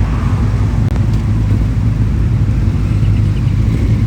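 A motorcycle engine idling steadily close by, with a loud, even low rumble.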